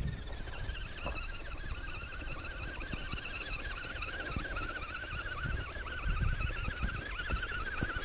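Electric motor and gearbox of an FTX radio-controlled rock crawler whining, the pitch wavering quickly up and down as the throttle is worked. Wind rumbles on the microphone, with scattered low knocks of the truck on the rocks.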